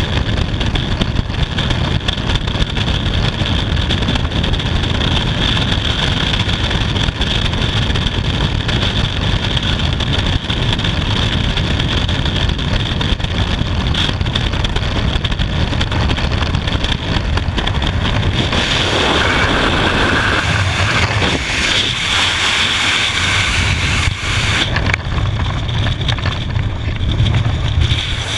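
Freefall wind rushing over a skydiver's camera microphone, loud and steady. About two-thirds of the way through, the rush turns brighter and hissier for several seconds, then settles again.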